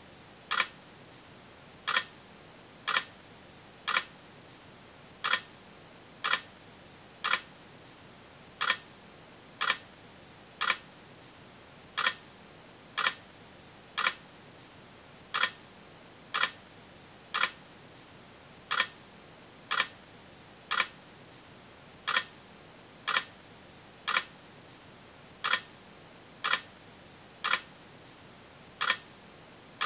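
Sharp, regular ticks about once a second, falling into groups of three with a slightly longer pause after each group, over a faint steady hiss.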